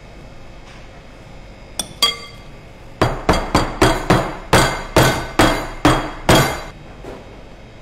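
Metal loaf pan full of cake batter rapped down on the worktop about eleven times in a row, roughly three knocks a second, to settle the batter. Two sharp ringing clinks come just before.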